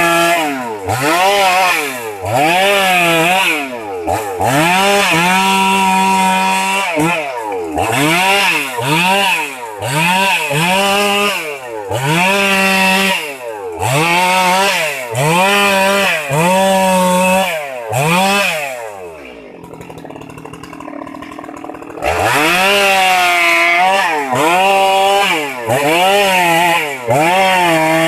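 Stihl MS 382 two-stroke chainsaw revved up and down over and over, about once a second: the pitch climbs to full throttle, sometimes holds there for a second or so, then falls back. About two-thirds of the way in it drops to a quiet low running speed for about three seconds, then the revving picks up again.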